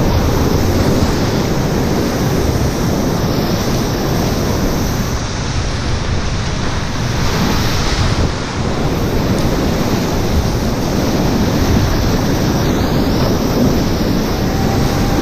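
Whitewater rapids rushing loudly, a steady, dense churning of water heard close from a small inflatable raft running through them.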